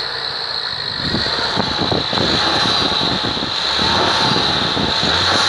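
Ford Focus ST Mk3's turbocharged four-cylinder engine running, heard from the open engine bay, with a steady high whine over the engine noise.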